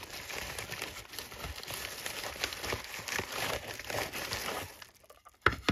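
Plastic poly mailer envelope crinkling as hands pull the contents out, followed near the end by two or three sharp knocks.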